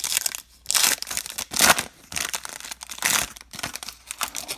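Trading-card pack wrapper being torn open and crinkled by hand, in a run of irregular crackling rustles, loudest in three bursts through the middle.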